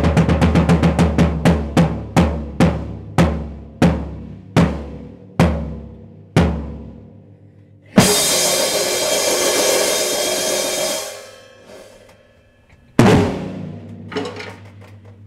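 Drum kit played solo: a fast run of low drum strikes slows down to single hits about a second apart, then a loud crash with a cymbal about eight seconds in rings for about three seconds. One more loud hit near the end rings out as the solo closes.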